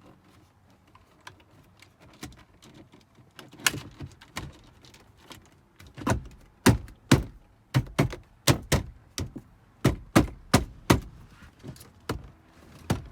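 BMW E92 plastic interior trim pieces around the start button being pushed and tapped back into the dash, a series of sharp plastic clicks and knocks. A few come scattered at first, then a quick run of about two to three a second from about six seconds in.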